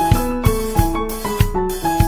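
Background music: a keyboard melody of held, stepping notes over a steady beat.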